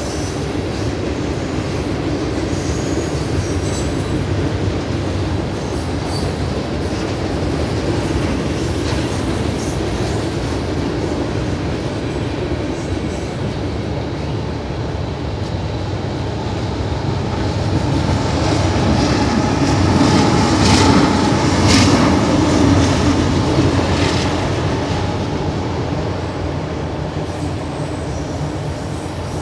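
Freight train cars rolling past on the rails: a steady rumble of wheels and cars, growing louder for a few seconds about two-thirds of the way through.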